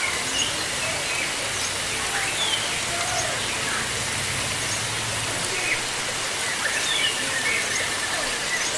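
Steady rush of running water, with short bird chirps and whistles scattered over it.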